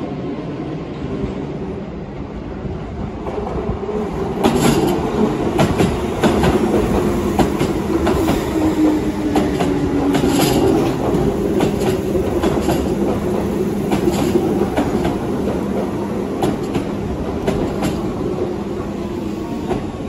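Keihan 5000 series commuter train rolling past at low speed: a steady rumble with a low hum, and from about four seconds in, as the cars come close, a rhythmic clickety-clack of wheels over rail joints.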